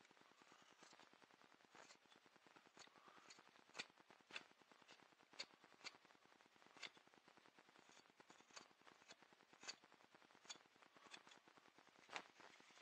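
Carving knife slicing shavings from a small wooden paddle: faint, short crisp cuts at irregular spacing, roughly one or two a second.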